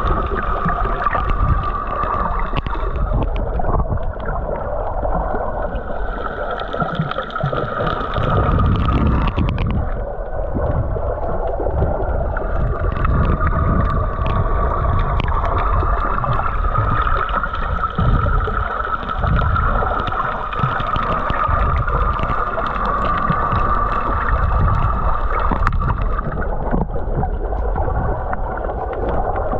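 Muffled underwater noise picked up by a camera below the surface while snorkeling: a low rumble with a steady whine above it. The whine fades for several seconds about four seconds in, then returns.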